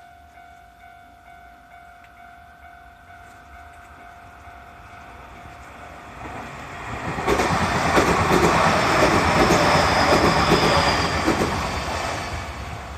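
A Nankai electric train passing over a level crossing. The rumble of its wheels with rail-joint clacks swells about six seconds in, stays loud for about five seconds with a faint high squeal, then starts to fade. Before the train arrives, the crossing's warning bell is heard faintly as a steady pitched tone.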